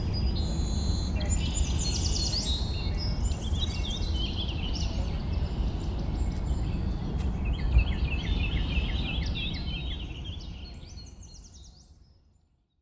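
Outdoor ambience: small birds singing repeated high chirping phrases over a steady low rumble, fading out near the end.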